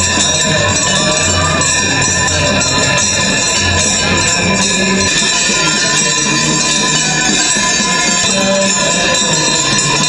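Many bells ringing continuously together with devotional music during a Hindu aarti ceremony.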